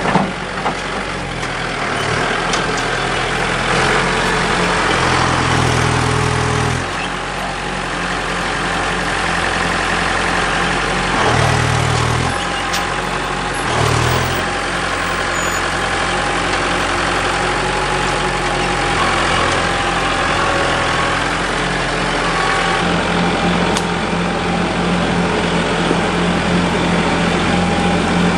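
Tractor engine running steadily, with a few brief changes in engine note about five, twelve and fourteen seconds in, and a steadier, stronger note in the last few seconds.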